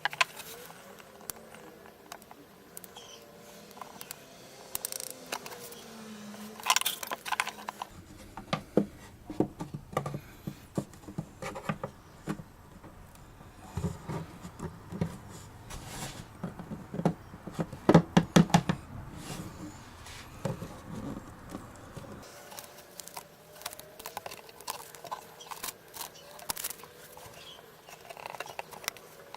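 Bench handling sounds: irregular taps and clicks of tools and parts being handled, with a low rumble underneath through the middle and a quick run of sharp clicks about two-thirds of the way in.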